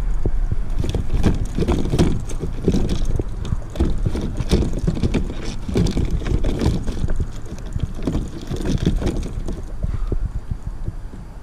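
A freshly netted cobia thrashing in the landing net on a kayak: irregular splashing and knocking against the hull, with rumbling handling noise, easing off near the end.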